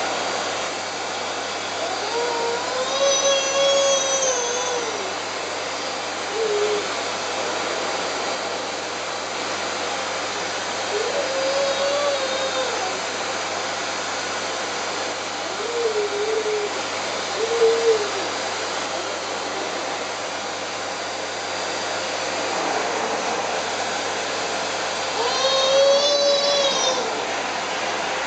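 Vacuum cleaner running steadily, with a high voice giving several long, arched 'oooh' calls over it.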